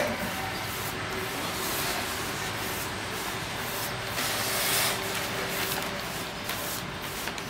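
Large mounting brush swept in broad strokes over damp backing paper, pressing it onto a Chinese painting: a continuous brushing rub on paper, loudest about four to five seconds in. A brief knock right at the start.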